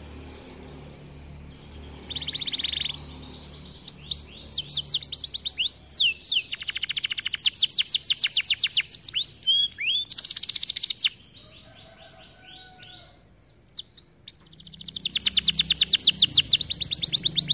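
Domestic canary singing: phrases of fast trills built from quickly repeated sweeping notes. There is a brief lull about two-thirds of the way through, then a long, rapid, loud trill near the end.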